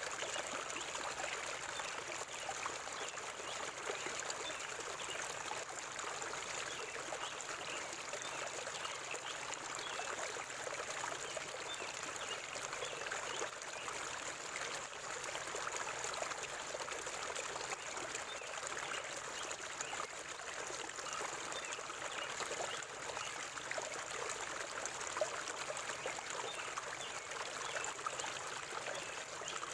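Forest river water flowing and trickling steadily over stones, a constant babbling rush full of small splashes and bubbles.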